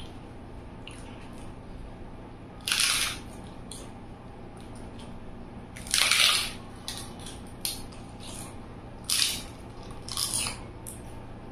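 Close-miked eating sounds: four loud crunching bites or chews, the first about three seconds in and the last near the end, with softer wet chewing between.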